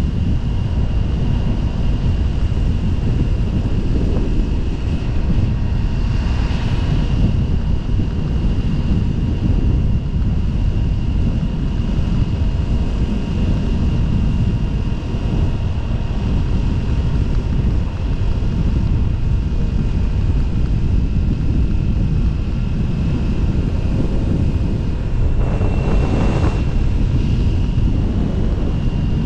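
Motorcycle cruising at steady speed: heavy wind buffeting on the microphone over a steady engine drone with a thin high whine, and a brief louder swell of noise near the end.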